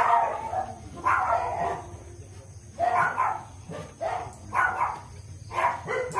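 A dog barking repeatedly, with short barks coming about once a second at an uneven pace.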